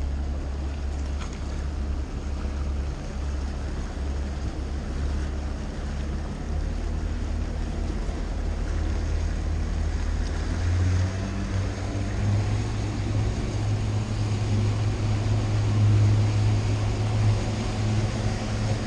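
Boat's outboard motor running steadily, with water noise along the hull; about ten seconds in the engine note steps up higher and louder as it speeds up.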